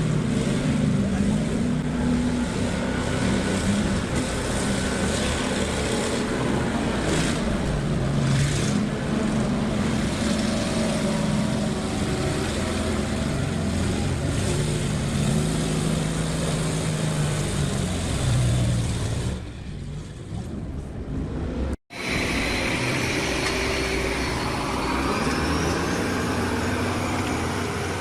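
Engine of heavy machinery running, its low hum wavering in pitch. About 22 seconds in the sound breaks off, and another engine sound follows with a faint rising whine.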